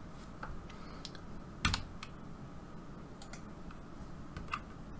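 A few sparse clicks of a computer keyboard and mouse over faint room tone, the loudest about a second and a half in.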